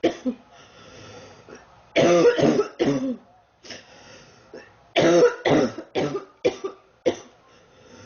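A sick girl coughing in two fits: a quick run of about three voiced coughs some two seconds in, then four or five more from about five seconds in.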